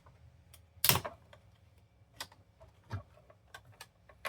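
Irregular light clicks and taps, one louder about a second in: tools, screws and plastic parts handled while an Xbox Series X console is taken apart.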